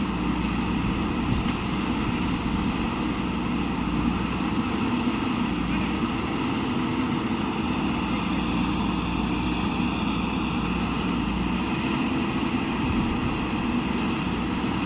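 Diesel engine of a JCB backhoe loader running steadily at working revs.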